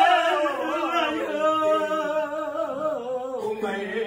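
A woman's voice keening a sung Tamil mourning lament: one unbroken, wavering, sliding wail.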